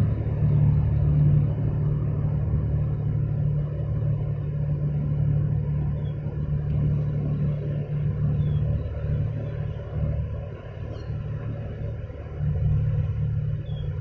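Engines of a 10,000-TEU container ship passing close by: a steady low rumble with a deep hum in it, easing briefly about three-quarters of the way through. A few faint bird chirps.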